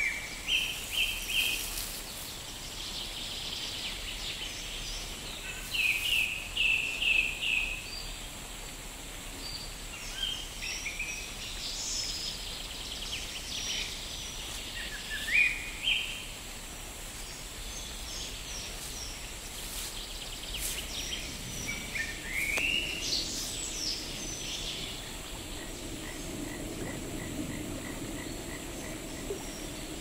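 Birds singing over a steady hiss of outdoor background noise: short repeated chirps and trills, with a few upward-sliding calls. A soft, lower rushing noise comes in over the last several seconds.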